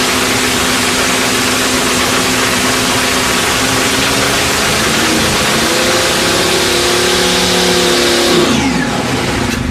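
Top Fuel dragster's supercharged nitromethane V8 running loud during a fuel burn-off. The revs are held steady, rise about five and a half seconds in, stay up for a few seconds, then fall off near the end.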